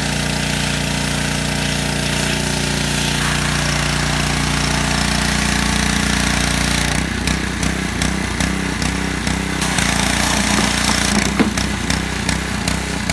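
Gas-engine 3200 PSI pressure washer running steadily under its spray, with the water jet hissing against plastic playhouse panels. About seven seconds in, the sound turns uneven and choppy.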